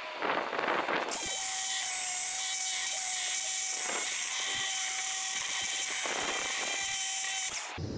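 A power tool runs steadily for about six seconds with a steady whine over a hiss. It starts about a second in and cuts off shortly before the end.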